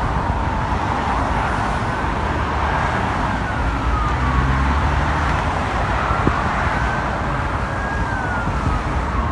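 A siren wailing, its pitch slowly rising and falling, over a steady traffic rumble.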